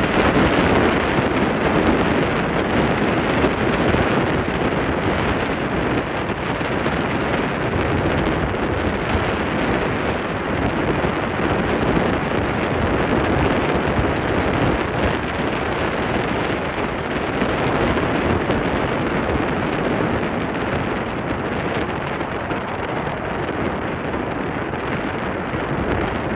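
Wind buffeting the microphone over the steady rush of the Staten Island Ferry under way.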